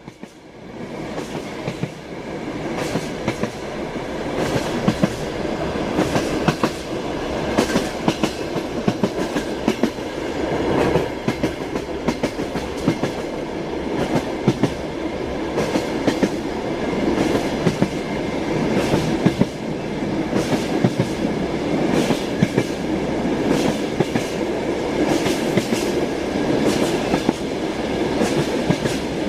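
Train running along the track, its wheels clattering over rail joints in irregular sharp clicks over a steady rumble; the sound fades in over the first couple of seconds.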